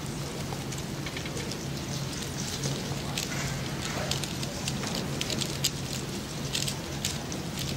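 A 3x3 speedcube being turned fast: rapid, irregular plastic clicking and rattling of the layers, over a steady low hum.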